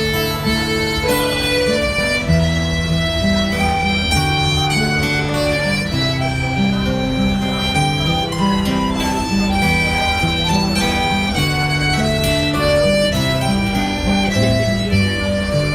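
Live band playing an instrumental passage of Irish folk music: a melody of held notes over a moving bass line, with plucked strings.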